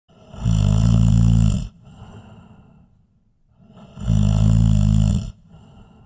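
A person snoring: two loud snores, each over a second long and about three and a half seconds apart, each followed by a quieter breath.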